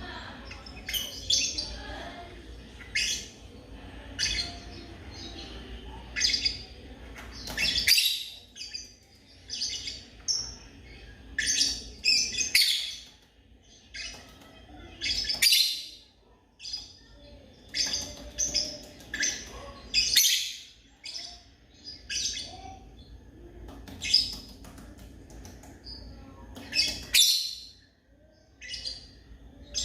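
Lovebirds chirping: many short, high-pitched calls in quick irregular runs, with a few brief lulls.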